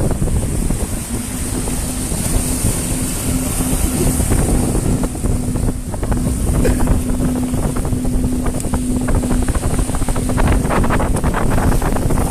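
Strong wind buffeting the microphone over surf washing on the rocks, with a faint steady hum through most of it and some crackling near the end.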